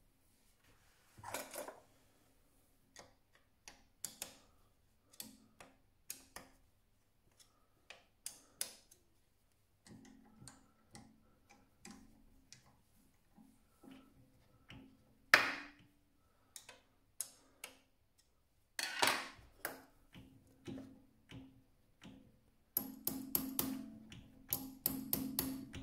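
Scattered clicks and knocks of metal parts on a mini lathe as the carriage handwheel and toolpost are worked by hand, with one sharper knock about halfway through. Near the end comes a quicker run of taps and rattles.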